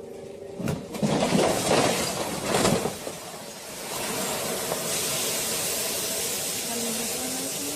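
A heavy machine going over: its engine hum cuts out and there is a loud crashing and crunching for about two seconds. After that comes a steady hiss.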